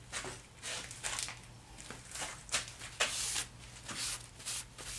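Short, irregular scraping and rustling as a machined 303 stainless steel shaft is handled and taken out of the milling setup among loose metal chips, over a faint steady low hum.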